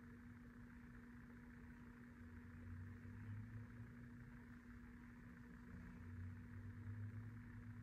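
Near silence: room tone with a steady low hum and a faint low rumble that swells up twice, once a couple of seconds in and again near the end.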